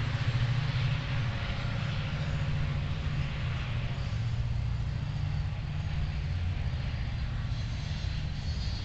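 A rescue fire truck's engine idling, a steady low rumble that holds even throughout.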